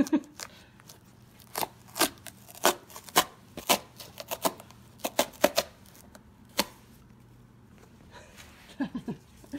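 Cardboard box's perforated tear strip being ripped open in short jerks by a dog pulling it with its teeth: about a dozen sharp tearing snaps.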